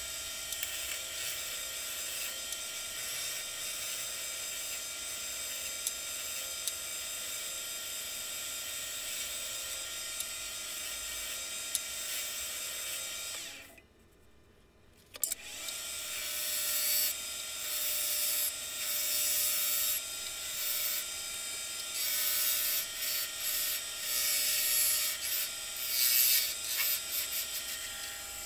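Wood lathe running with a steady whine as it spins a wooden blank; it falls almost silent for about a second midway. A turning tool then cuts the spinning wood in uneven, louder surges of scraping hiss.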